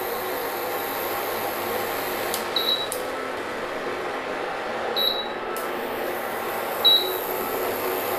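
Prestige PIC 15.0+ induction cooktop's touch-panel buttons giving three short high beeps as the timer is set, over the steady whir of the cooktop's cooling fan.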